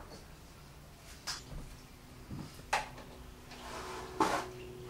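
A few scattered light clicks and knocks, as of things being handled in a room, over a faint steady hum. A soft brushing sound comes just before the loudest knock, near the end.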